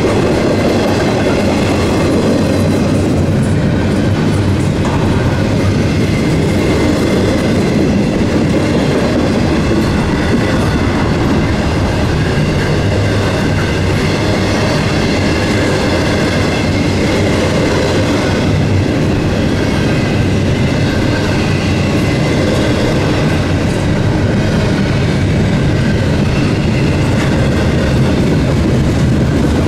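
Eastbound Norfolk Southern intermodal freight train's cars rolling past steadily and loudly, with faint high steady tones on top.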